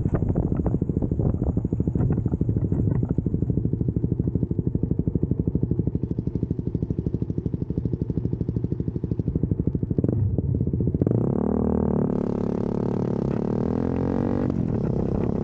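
2022 CFMoto 300SS's single-cylinder engine running at low revs with a pulsing beat as the bike slows almost to a stop. About two-thirds of the way in, the note turns smoother and starts rising and falling in pitch.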